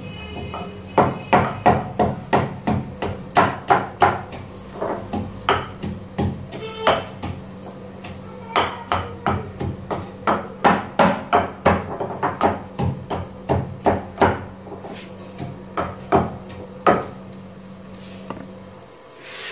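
A pestle pounding a whole frozen tomato in a kundi danda mortar, about two to three strikes a second with a couple of short pauses, crushing it to a paste. The strokes stop near the end.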